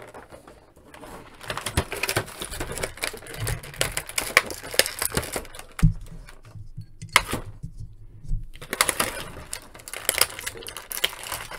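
Clear plastic blister tray crackling and clicking as action figures and small accessory hands are pried out of it by hand, with a brief pause a little past halfway.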